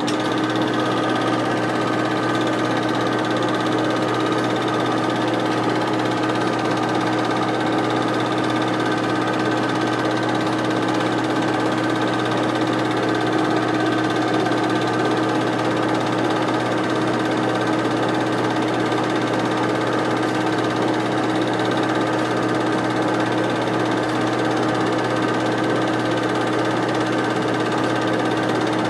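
8mm film projector running steadily, its motor and film mechanism whirring with a constant, even hum.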